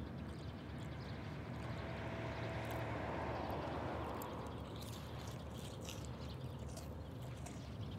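Low, steady rumble of a car's cabin, with faint light clicks from about five seconds in.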